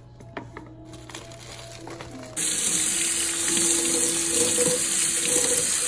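Kitchen tap running onto a celery stalk held under it in a stainless steel sink, the water starting suddenly about two and a half seconds in and splashing steadily.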